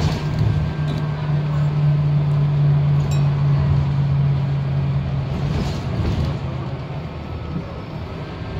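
Scania K230UB bus's five-cylinder diesel and drivetrain heard from inside the passenger saloon while under way: a steady low drone over road rumble that holds for about five seconds, then falls away as the bus eases off.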